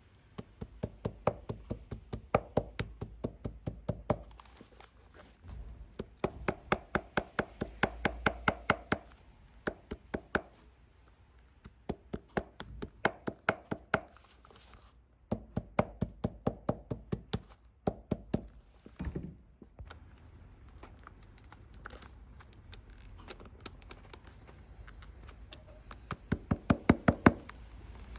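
Rapid, evenly spaced knocking from shoe-repair work on a Red Wing Beckman boot, about four to five knocks a second. The knocking comes in runs of a few seconds with short pauses between them, and the loudest run is near the end.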